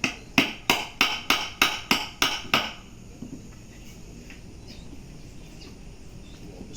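A run of nine sharp knocks, about three a second, like something being struck repeatedly with a hammer, stopping after nearly three seconds.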